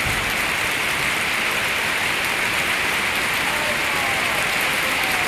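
Heavy rain beating steadily on wet ground and puddles, a dense, even hiss.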